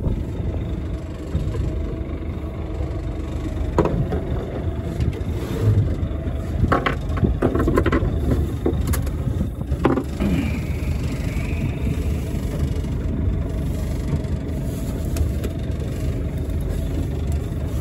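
Fishing boat's engine idling: a steady low rumble, with a few brief short sounds over it.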